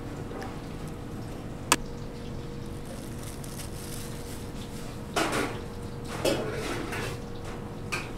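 Crockery and utensils clattering at a noodle stall: one sharp clink about two seconds in, then a couple of rougher clattering bursts past the middle, over a steady faint hum.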